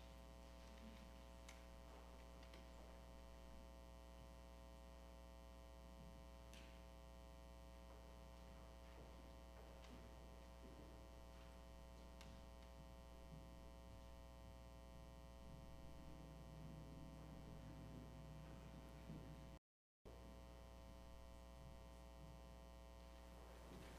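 Near silence: a steady electrical hum with a few faint scattered clicks, broken by a brief dropout to total silence about twenty seconds in.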